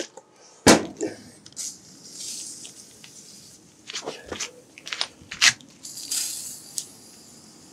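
Aerosol can of oven cleaner spraying in a few short hisses onto a cast-iron lathe tailstock body, coating it to strip old gummed-up grease. A sharp knock comes near the start, and smaller clicks and knocks of handling fall between the hisses.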